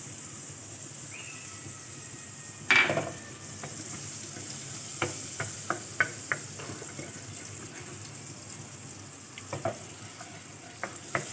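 Blue Band margarine melting and sizzling steadily in an aluminium kadhai, stirred with a wooden spatula. The spatula knocks against the pan once, more loudly, about three seconds in, then taps and scrapes it lightly in a quick run around five to six seconds and again near the end.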